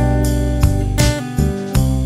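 Background music led by a strummed guitar, chords struck about twice a second.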